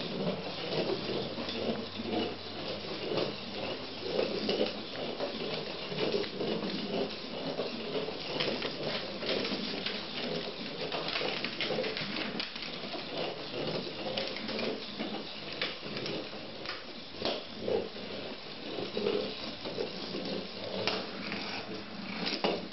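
Battery-powered Weazel Ball rolling on its own over a hardwood floor: its plastic shell and internal motor make an uneven, warbling rumble, with occasional sharp clicks and knocks.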